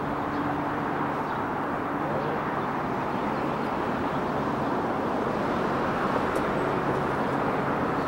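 Steady city traffic noise with a faint low engine hum running under it.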